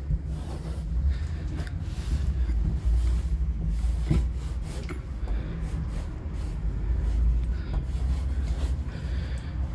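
Wide felt tip of a Grog 25 BPI squeeze marker rubbing across a smooth painted panel in short strokes, over a steady low rumble.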